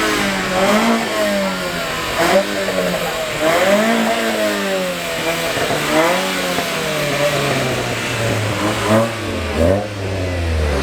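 Car engine revved again and again, its pitch rising and falling with each blip, with a few sharp bangs among the revs. A lower, steadier engine note comes in near the end.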